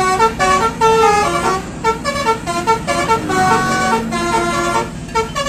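Telolet bus horn playing a quick multi-note melody, a rapid run of loud horn tones.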